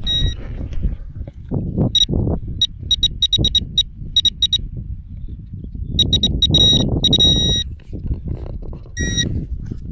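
Metal detector beeping over a target that reads 86 near the surface, in short high beeps: single beeps, then quick runs of them around three to four seconds in and again around six to seven seconds in, and one wavering beep near the end. Rustling and scraping of handling and digging run underneath.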